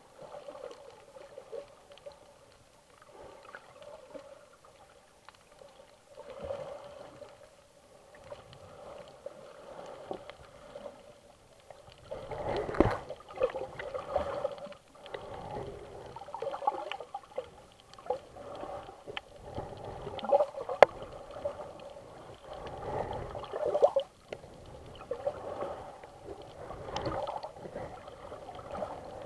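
Water sloshing and gurgling around a submerged camera, muffled as heard from below the surface. It grows louder and choppier about twelve seconds in, with a few sharp knocks.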